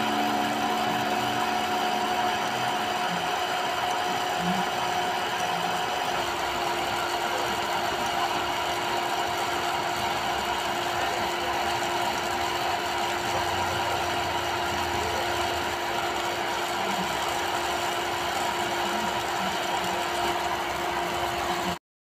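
Small DC motor and fan of a homemade plastic-bottle vacuum cleaner running steadily, a constant whine over the rush of air being drawn through the hose as it sucks up paper scraps. The sound stops abruptly near the end.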